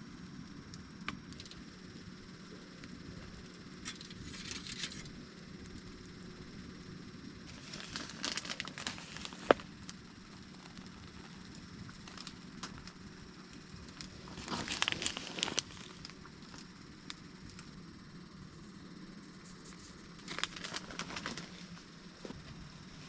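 Plastic packaging crinkling and rustling in four short bouts, with small clicks and ticks in between.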